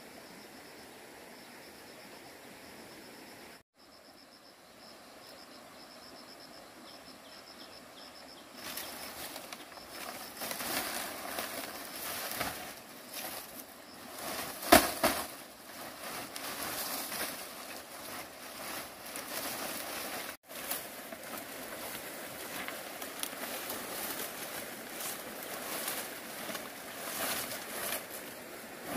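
Steady outdoor hiss with a thin high whine, then irregular rustling and scraping of hands at work, with one sharp, loud knock about halfway through.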